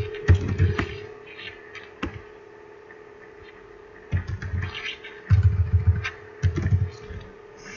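Typing on a computer keyboard in short bursts of keystrokes, each key landing with a dull low thud. One burst comes at the start, a single tap about two seconds in, then three more bursts after a pause. A steady electrical hum runs underneath.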